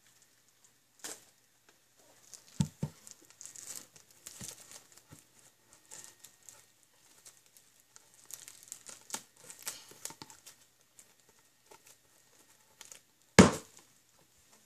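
Plastic shrink-wrap crinkling and tearing as it is pulled off a DVD box set, in two spells of fine crackling, with a couple of soft knocks from handling the box. Near the end comes a single loud thump as the box is set down on a hard floor.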